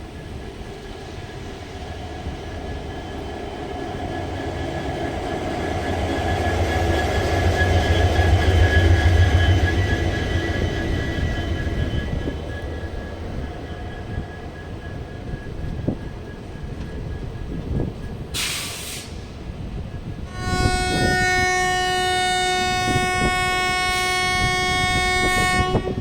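WDG4D diesel-electric locomotive's engine humming, swelling louder over the first several seconds and then fading. A short hiss follows, then the locomotive's horn sounds one steady blast of about five seconds that cuts off near the end.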